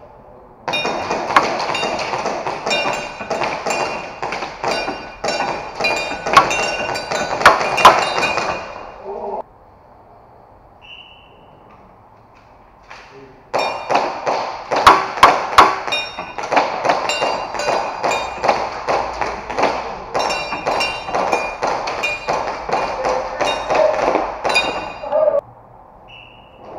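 Two long strings of rapid airsoft pistol fire, with BBs clinking and pinging off a row of metal targets, each string lasting about ten seconds. A short high beep sounds in the quieter pause between them.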